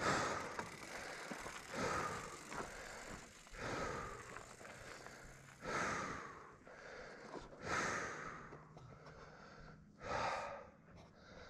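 A man's heavy, pained breathing after a hard crash: deep gasping breaths roughly every two seconds, from a rider hurt and still down after going over the handlebars.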